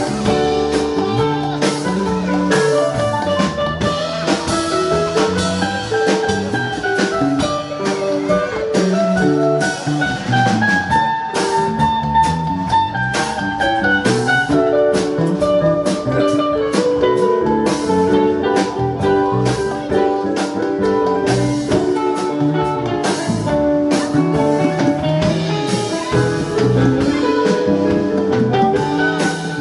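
Live rock band playing an instrumental passage with no singing: electric guitars, electric bass and keyboard over a drum kit.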